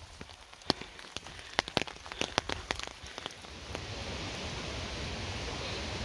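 Scattered raindrops tapping sharply on an umbrella. About three and a half seconds in, the steady rush of a creek and waterfall below a footbridge swells up and holds.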